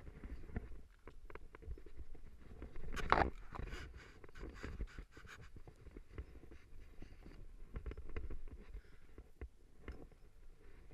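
Handling noise on a chest-mounted GoPro Hero3: clothing and climbing gear rubbing and knocking against the camera, irregular rustling and small knocks over a low rumble, with one louder scrape about three seconds in.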